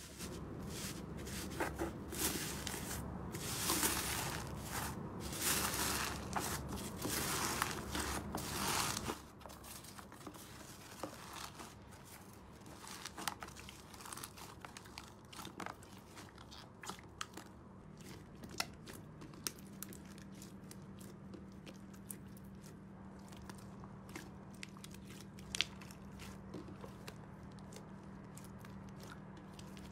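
Slime being squeezed and worked in the hands close to the microphone, giving crunching and crinkling in swells about a second apart for roughly nine seconds, then quieter, with scattered small pops and clicks.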